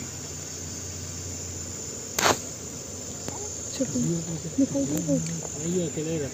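Steady, high-pitched drone of forest insects, with a single sharp knock about two seconds in.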